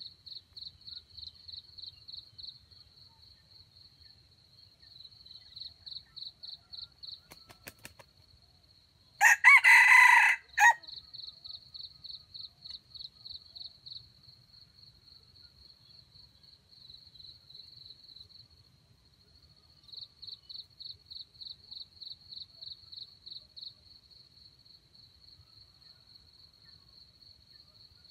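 A red junglefowl rooster crows once, a short crow of about a second and a half about nine seconds in. Behind it runs a steady, rapidly pulsing cricket chirp that drops out for a few seconds in the middle and then resumes.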